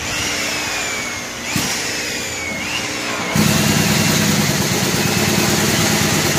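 Electric power-tool motors running steadily in a polishing shop, with a whine that dips and rises as if a tool is being loaded and eased off. The sound gets louder about three and a half seconds in.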